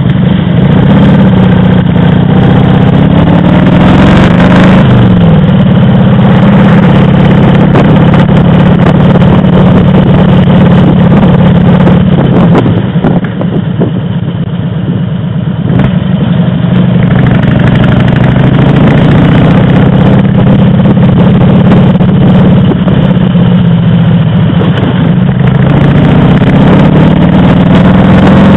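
Motorcycle engine running while the bike is under way. Its pitch sweeps up and then down about four seconds in, and it eases off and is quieter for a few seconds around the middle.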